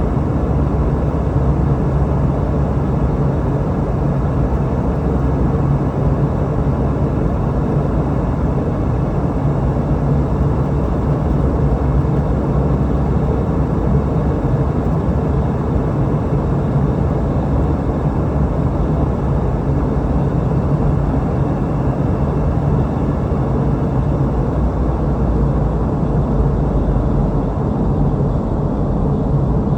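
Steady in-flight cabin noise of a Boeing 717-200 airliner: the even drone of its rear-mounted Rolls-Royce BR715 turbofans and rushing air, with a low hum that holds steady throughout.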